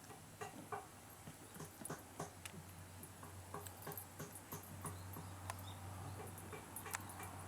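Shiba Inu eating a treat: irregular small wet smacks and clicks of chewing and licking, over a steady low hum.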